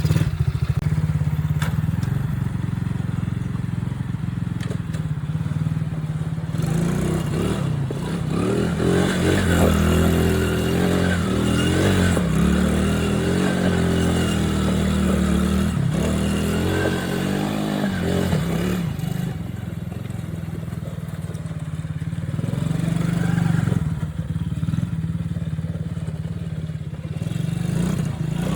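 Coolster 125cc ATV's small single-cylinder four-stroke engine running while being ridden, its revs rising and falling. The engine is busiest in the middle stretch.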